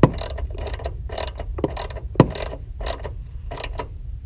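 Socket ratchet clicking in short repeated bursts as it tightens a mounting nut on the aluminum power steering tank's bracket, with two sharper knocks, one right at the start and one about two seconds in.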